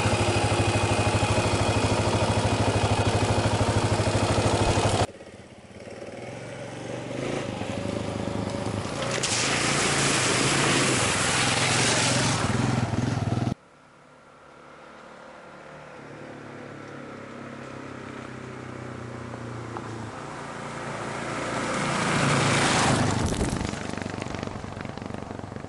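Kawasaki KLR650's single-cylinder four-stroke engine in three cut-together shots: first running steadily right by the microphone, then the bike riding through a shallow creek crossing with a hiss of splashing water, then the bike approaching along a dirt track and passing close near the end, its pitch falling as it goes by.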